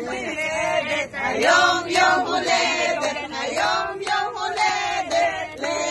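Several voices singing together with no instruments, long held notes.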